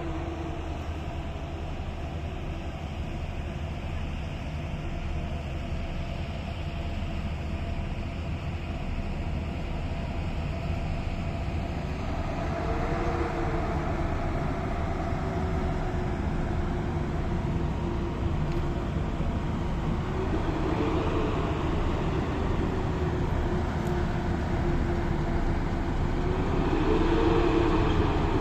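Train on the move: a steady rumble with a motor whine that swells three times and grows louder toward the end.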